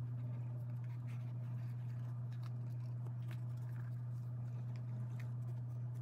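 A steady low hum, with faint light clicks and taps as a hinged jewellery presentation box is handled.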